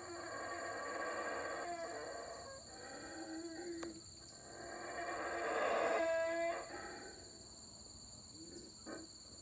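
A troop of Yucatán black howler monkeys howling: deep, rasping roars in two long swells, the second and louder one peaking about six seconds in and dying away about a second later. It is the troop's evening howl that warns neighbouring troops off their area.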